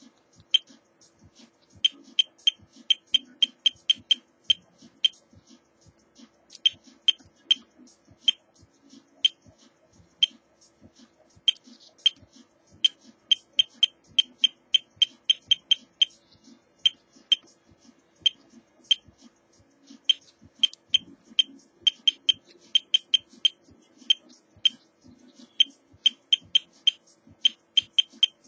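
Short, high-pitched beeps from an Atmega8 RGB LED controller's buzzer, one for each button press. They come singly and in quick runs of several a second as the settings are stepped up and down.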